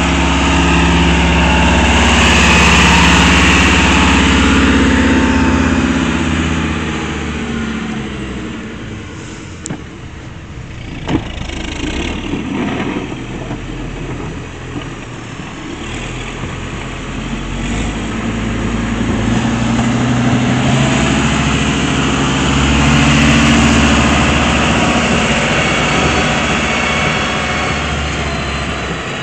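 Engine of a snow-clearing machine running close by and working, its note rising and falling as it pushes and backs off: loud in the first few seconds, easing off around ten seconds in, then building again after about twenty seconds. A single sharp knock comes about eleven seconds in.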